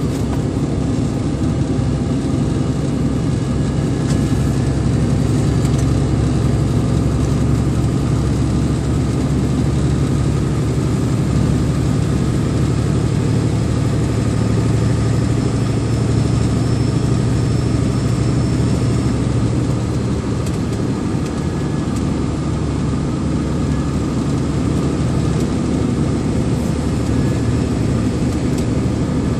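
Vehicle engine droning steadily with road noise while climbing a winding mountain grade under load.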